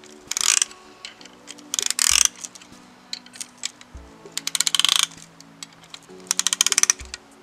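Ratchet of a band-type piston ring compressor being cranked in four short bursts of rapid clicks, tightening the band to squeeze the piston rings. Background music with sustained chords runs underneath.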